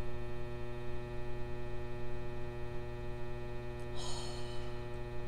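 Steady electrical mains hum with many evenly spaced overtones, and a short soft hiss about four seconds in.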